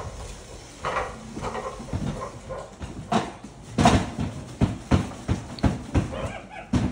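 Black-capped capuchin monkey making short calls, with a series of sharp knocks and thumps, loudest about four seconds in.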